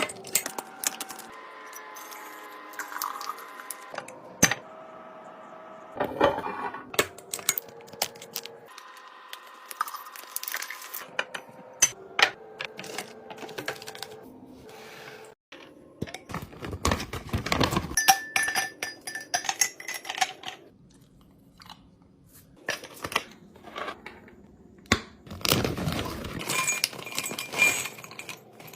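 Food containers, lids and dishes being handled in a kitchen: scattered clicks, knocks and clinks with brief rustling stretches.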